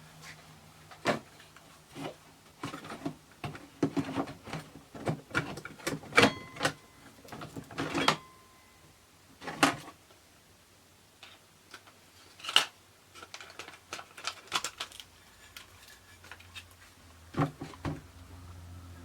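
Irregular small clicks, taps and knocks of plastic and metal parts being handled and fitted together during instrument-cluster reassembly, a few with a brief metallic ring.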